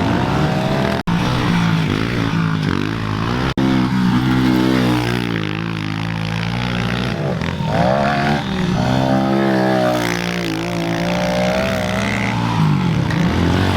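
Small pit bike engine revving up and down repeatedly as the bike is ridden around a dirt track, the pitch climbing and falling through throttle changes and shifts.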